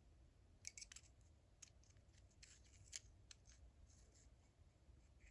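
Faint, scattered light clicks and taps from the steel parts of a disassembled ratchet being handled, about a dozen in all, in loose clusters.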